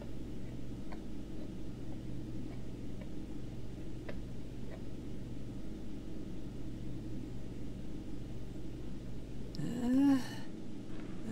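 Steady low background hum with a gentle regular pulse. Near the end the hum cuts out and a short voiced sound rises and falls in pitch, like a boy's wordless 'hmm'.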